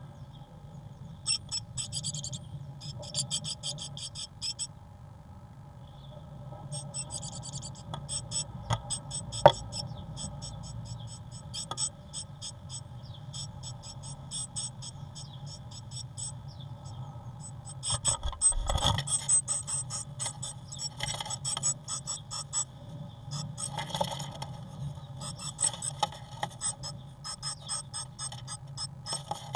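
Great tit at a nest box: runs of rapid, sharp clicking and scratching in bursts, over a steady low hum. A single sharp knock stands out about a third of the way in, and a low thud comes a little past halfway.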